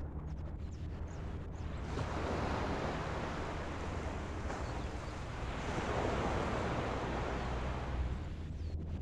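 Ocean surf washing in, swelling twice, over a steady low rumble of wind on the microphone.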